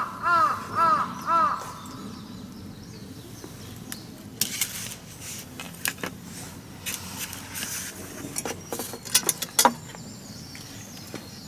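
A bird calling about three times in quick succession, each call a short arching note. Later there are scattered sharp clicks and crackles, the loudest near the end.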